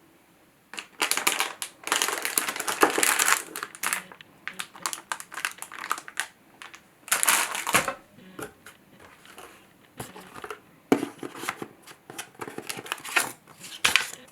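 Packaging crinkling and rustling as it is handled and unwrapped, in irregular bursts starting about a second in, with a few sharp clicks among them.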